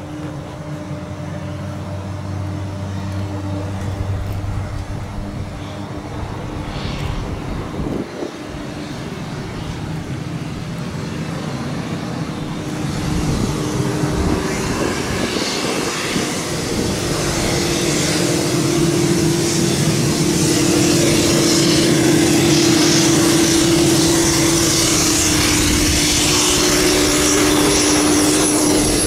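Turboprop aircraft engines running with a steady hum and a thin high turbine whine. The sound grows louder through the second half, with a hissing rush building over the hum.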